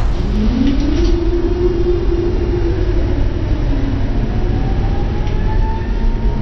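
Tatra T3 tram running, heard from inside the passenger compartment: a steady low rumble of the bogies, with a whine that glides up in pitch about half a second in and holds, then a second, higher whine climbing slowly from about halfway through as the tram picks up speed.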